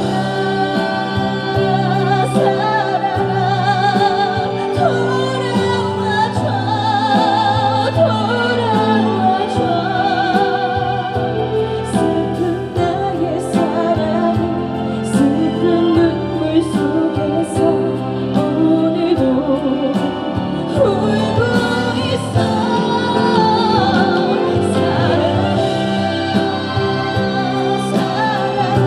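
Slow trot ballad played live through a PA system: held bass notes under a melody line with a strong vibrato.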